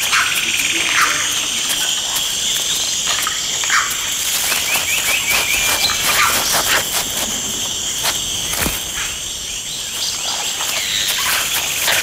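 Tropical forest ambience: a steady high drone of insects, with a few short bird calls and a quick run of chirps about five seconds in. Scattered rustling and scratching in dry leaf litter comes from an agouti digging.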